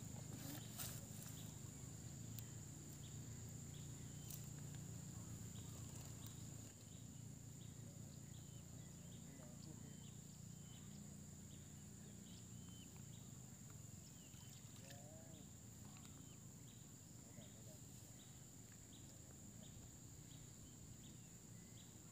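Faint outdoor night ambience: a steady high-pitched insect drone with short chirps repeating at an even pace, over a low rumble that eases about a third of the way in.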